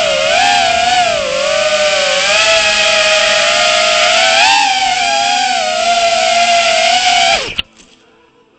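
Brushless motors of a 3.5-inch FPV drone whining in flight, recorded on board, the pitch wavering up and down with the throttle. About seven and a half seconds in the whine drops and cuts off suddenly as the drone lands and the motors stop.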